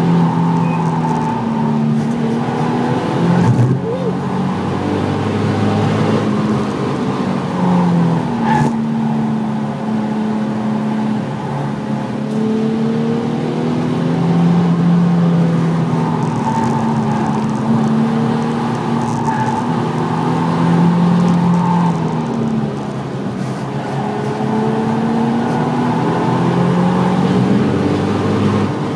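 Nissan 350Z's 3.5-litre V6 heard from inside the cabin at speed, its note climbing under acceleration and dropping back at gear changes and lifts for corners, over steady road and tyre noise.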